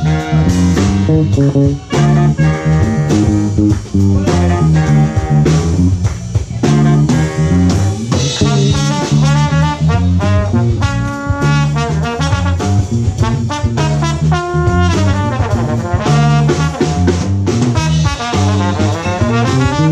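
Live horn band playing an up-tempo funk groove: a saxophone section plays held, bending lines over a drum kit and a strong, repeating bass line.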